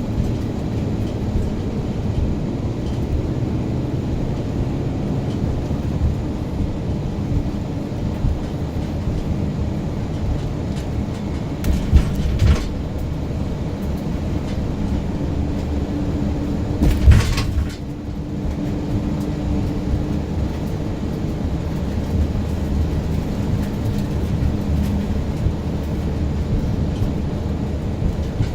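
A vehicle driving, with a steady low rumble of engine and road noise. Two brief louder swells break through, about twelve seconds in and again around seventeen seconds in.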